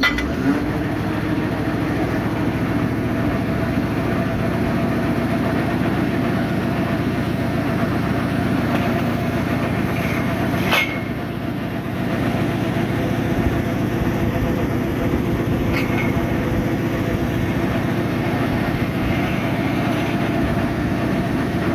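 An engine or motor-driven machine running steadily with a fast, fine rattle, and a sharp click about eleven seconds in.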